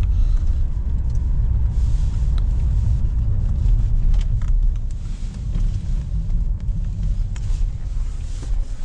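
Car on the move, heard from inside the cabin: a steady low engine and road rumble that eases off a little about halfway through as the car slows.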